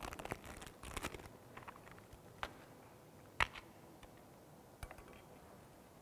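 Gloved hands handling a roll of plumber's thread-seal tape: faint rustling and small clicks, with a sharper click about three and a half seconds in.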